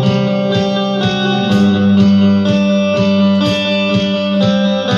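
Electric guitar, a Stratocaster-style solid-body, played with a pick: repeated single notes about three a second, ringing on into one another.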